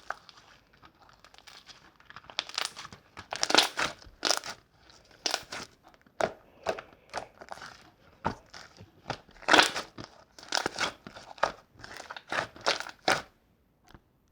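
Slime being squeezed and pressed by hand: an irregular run of short crackly, crinkly squishes and pops that stops about a second before the end.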